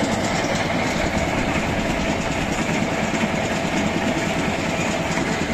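Narrow-gauge diesel locomotive's engine idling steadily close by, an even rumble with a faint steady whine over it.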